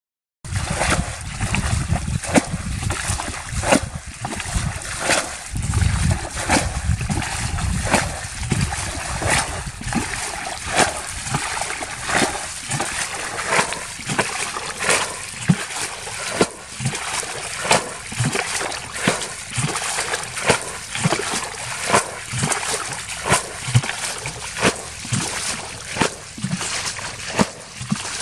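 Water being scooped and thrown out with a plastic bucket from a muddy field pool, a splash about every one and a half seconds.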